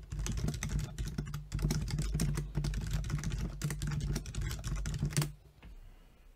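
Rapid typing on a computer keyboard, a quick run of keystrokes that stops about five seconds in.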